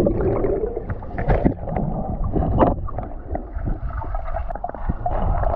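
Water splashing and sloshing in shallow water, with many small irregular splashes over a low rumbling rush.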